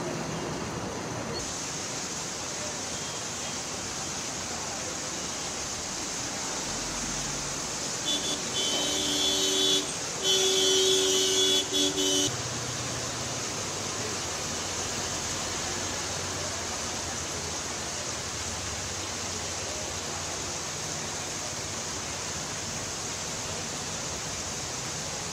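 Heavy rain hissing steadily on a flooded street, with a vehicle horn honking several times about a third of the way through, the last blast about two seconds long.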